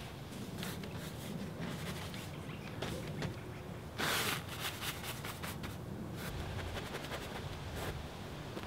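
Wide paintbrush loaded with oil paint rubbing across a large stretched canvas: a short scratchy stroke about four seconds in, with a few fainter brush strokes around it.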